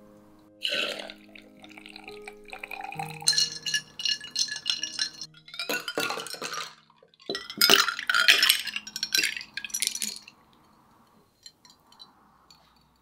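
Coffee poured from a glass server over ice cubes into a glass, the ice clinking and ringing against the glass, loudest about seven to ten seconds in. A single sharp glass clink comes about a second in, over soft music that fades out.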